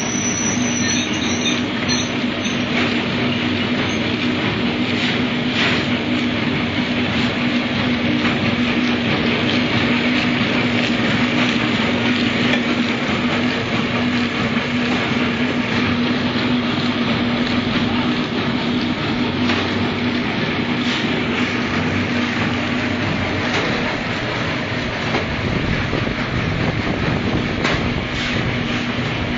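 Chikki and cake-bar packaging machine running steadily: a continuous mechanical clatter over a low, even hum.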